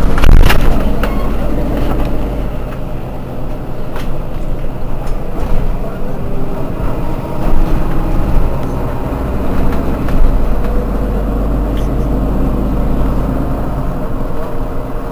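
Mercedes-Benz Citaro G C2 articulated city bus's diesel engine idling steadily while the bus stands still, heard from right behind it. A couple of sharp knocks sound at the very start.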